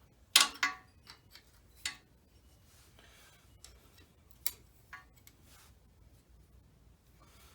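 Scattered sharp clicks and clinks of hand tools being handled on an ATV engine, two loudest about half a second in and a few lighter ones after.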